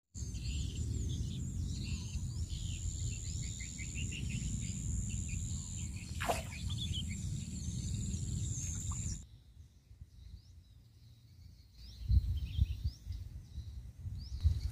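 Birds chirping and singing over a steady low outdoor rumble and a thin high whine, with a brief swish about six seconds in. A little after nine seconds the background drops much quieter, then a few low gusts come in near the end.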